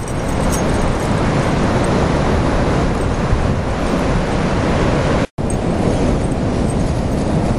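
Steady rushing roar of ocean surf mixed with wind rumbling on the microphone. It breaks off completely for a split second about five seconds in.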